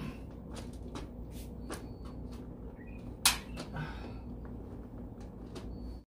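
Small clicks and knocks from handling refrigerant gauge manifold hoses at an air conditioner's outdoor unit, with one sharp knock about three seconds in, over a steady low rumble.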